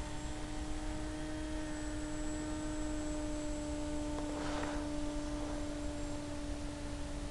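A steady hum with an even hiss beneath it, and a brief rush of noise about four and a half seconds in.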